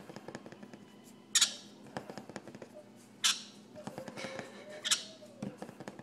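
Baby yellow-sided green-cheeked conure giving three short, shrill squawks about a second and a half apart, with light clicks in between.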